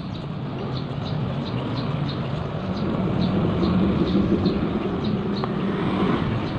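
Low engine rumble of a motor vehicle, growing louder about halfway through, with faint high ticking about three times a second over it.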